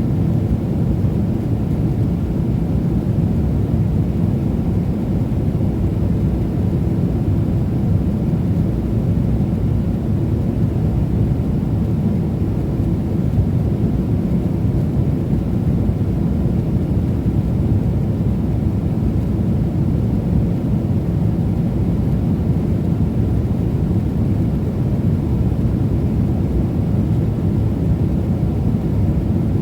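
Steady low cabin rumble inside a Boeing 777-300ER airliner, even throughout with no changes.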